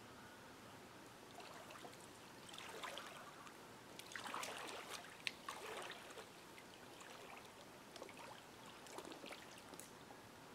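Faint sloshing and splashing of shallow water as a person wades in it, in several short spells, with one sharp click about halfway through.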